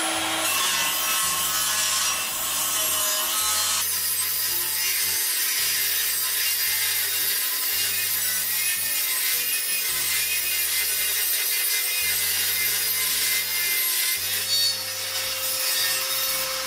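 Table saw ripping along a weathered, warped board held in a sliding sled, the blade cutting steadily through the wood for the whole pass.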